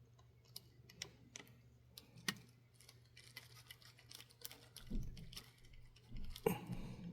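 Faint, irregular small clicks and taps of small hand tools and metal parts being handled on an HO-scale brass model locomotive, with a couple of louder knocks and rustles about five and six and a half seconds in.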